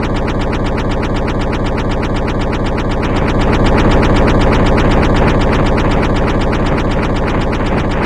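Machinery running with a loud, steady, rapid mechanical chugging, pulsing several times a second.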